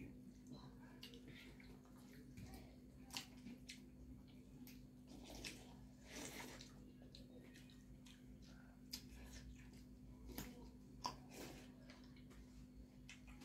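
Faint eating sounds of hands working rice and dal on steel plates: scattered small clicks and soft wet squishes, with some chewing, over a faint steady hum.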